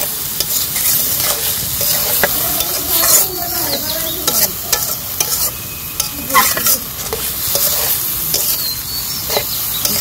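Shredded cabbage sizzling in a large wok (kadai) as a long metal spatula stirs and tosses it, with repeated scrapes of the spatula against the pan.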